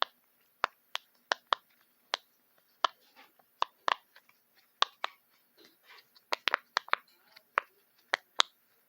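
Silicone bubbles of a unicorn pop-it fidget toy being pressed one after another, each giving a sharp pop, about twenty pops at an uneven pace, some in quick runs.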